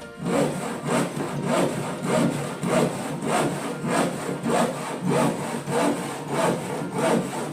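Hand saw cutting through wood in steady back-and-forth strokes, about one and a half strokes a second.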